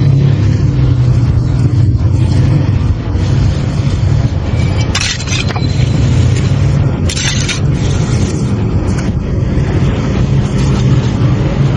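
A motor engine running steadily, with two short hissing bursts about five and seven seconds in.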